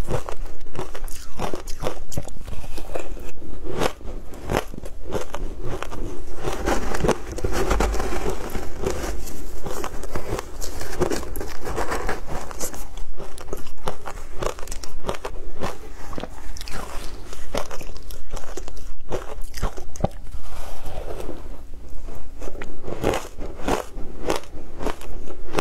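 Close-miked crunching of shaved ice dusted with matcha powder, bitten and chewed in a rapid, unbroken run of crunches.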